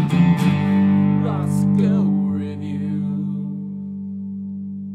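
Outro music: a held chord ringing out and slowly fading, with a few brief sliding tones over it in the first couple of seconds.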